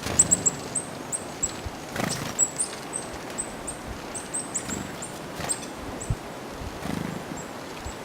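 Tits giving many short, very high, thin calls in quick succession, several a second, thinning out near the end, with a few soft rustles.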